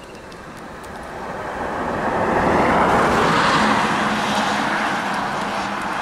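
A pickup truck drives up close past, its tyre and engine noise swelling to a peak about three seconds in, then settling to a steady engine hum as it moves ahead.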